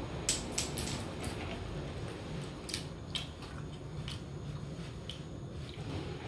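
A pet eating a piece of sweet potato: a scatter of short wet chewing and smacking clicks over a low steady hum.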